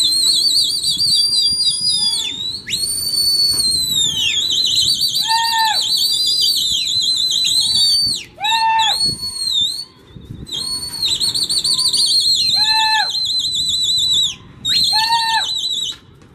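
Pigeon fanciers whistling loudly at their flying pigeons. A high, warbling, trilling whistle is held for several seconds at a time and breaks off briefly a few times, and short lower whistled notes cut in four times.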